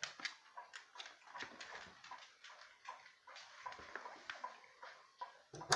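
Faint ticking of a weight-driven grandfather clock's mechanical movement, a few sharp, slightly ringing ticks a second. A louder click comes near the end.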